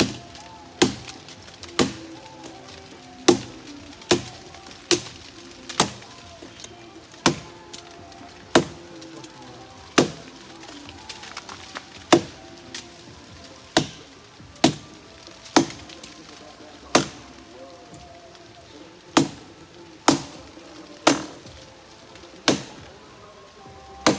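Firewood being chopped: sharp blows on dry wood, about one a second, some twenty strikes with two short pauses. Faint music plays under it.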